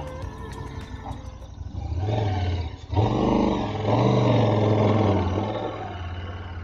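KTM 1290 Super Adventure S's V-twin engine idling, then revved up three times in quick succession before settling back to idle, as the bike tries to pull itself out of soft ground it has sunk into.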